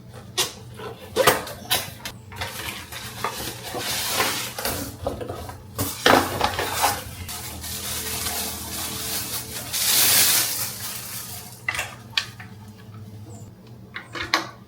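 Packaging being opened and handled: rustling with scattered knocks and clicks, the longest and loudest rustle about ten seconds in.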